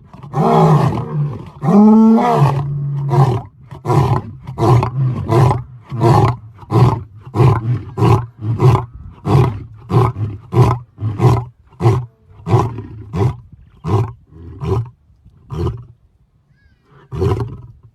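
Lion roaring: two long roars, then a long series of short grunts that slowly space out and fade, with one last grunt near the end.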